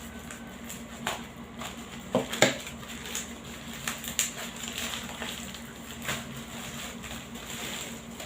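Bubble wrap crinkling and crackling as it is handled and pulled off a packaged item, in irregular bursts with a sharper crackle about two and a half seconds in.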